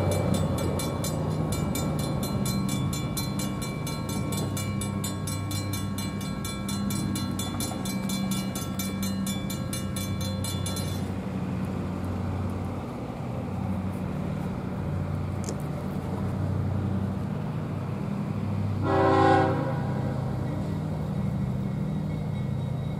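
GE diesel locomotives approaching under power, with a steady low engine drone. A bell rings rapidly through the first half and stops, and near the end the locomotive horn gives one short blast of about a second.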